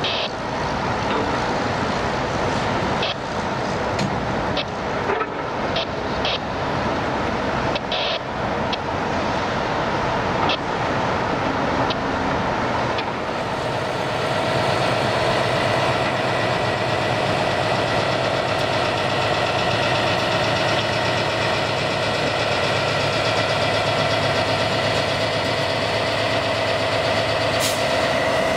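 Heavy diesel engine noise with scattered sharp clicks and knocks, then from about halfway a Union Pacific diesel-electric locomotive running steadily, its engine hum carrying a steady whine.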